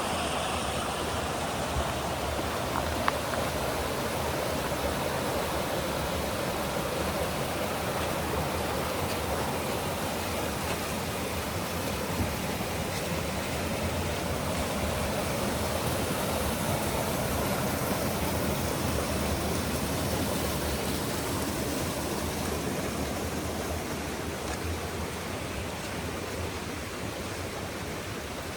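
Shiraito Falls, a waterfall, rushing steadily, its sound easing off a little near the end.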